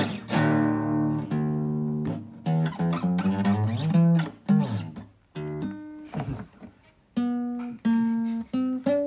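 Nylon-string acoustic guitar played by hand: strummed chords left to ring, then shorter picked notes and phrases with a couple of brief pauses, ending on single plucked notes.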